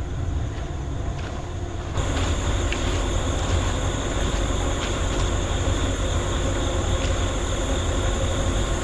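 Steady low rumble of a pickup truck running, with an abrupt change in the noise about two seconds in.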